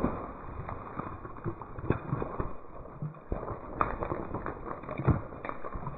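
Scattered irregular knocks and rustling as a hooked small snakehead (kocolan) is reeled in and landed by rod and reel.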